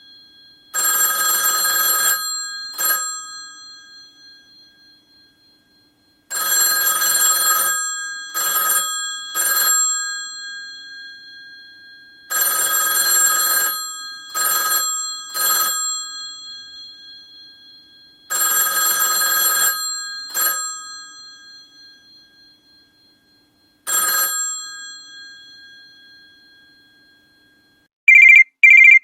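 An old telephone's mechanical bell ringing in repeated rings about every six seconds. Each ring is a long burst of about a second and a half, then one or two short extra strikes, and the bell hums on as it fades. In the last second a different, electronic phone ring starts with two short beeps.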